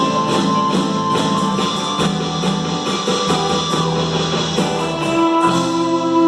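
Live acoustic worship music: strummed guitar with accompaniment in an instrumental passage, settling onto a held chord near the end.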